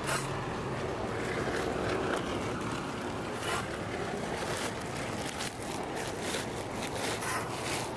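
Plastic tarp rustling and crinkling as it is handled, a run of sharp crackles over a steady rushing noise.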